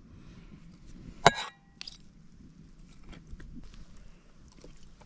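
A sharp metallic clink with a brief ring about a second in, then a lighter tap and a few faint small clicks: metal striking the cast iron stew pot.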